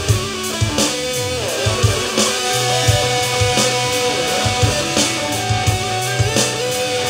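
Instrumental rock jam: electric guitar playing a lead line with sliding notes over low held bass notes and a steady drum-kit beat.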